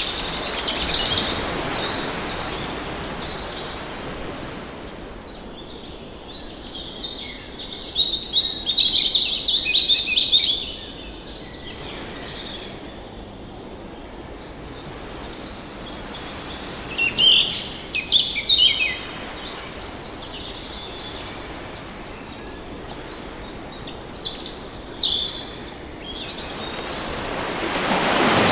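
Birds chirping and singing in several bursts of quick high notes, over a steady wash of ocean waves that swells near the start and again at the end.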